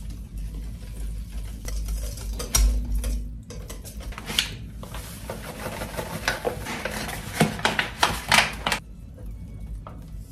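Wire whisk stirring flour into a wet batter in a bowl, its wires clicking and scraping against the bowl, with a paper flour bag rustling as more flour is poured in partway through. This is the first mixing of a yeasted bread dough, the flour going in in stages.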